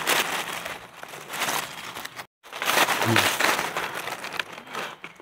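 Dry dead leaves and twigs rustling and crackling as a hand rakes through forest leaf litter to uncover and pick mushrooms.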